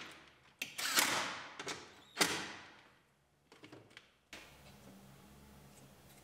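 Cordless drill-driver running in two short spurts, driving in the grab handle bracket's fasteners, about a second in and again just after two seconds. A few faint clicks follow, then a faint steady hum.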